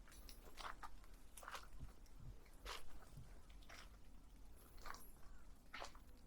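Footsteps crunching on a path, one short crunchy step about every second, at an uneven pace.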